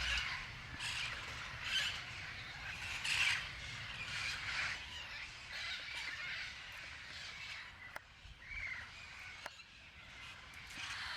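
Wild Amazon parrots calling, one call after another, some louder than others.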